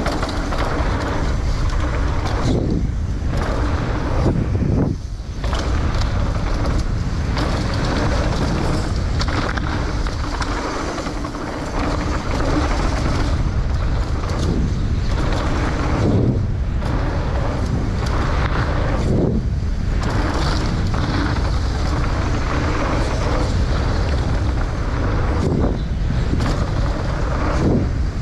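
Wind rushing over an action camera's microphone, over the rumble and rattle of mountain bike tyres rolling fast down a dirt trail. The noise dips briefly a few times.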